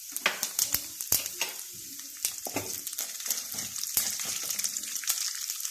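Chana dal and urad dal sizzling in hot oil with spluttered mustard seeds in a kadai, being stirred, with a steady hiss and irregular sharp clicks and pops.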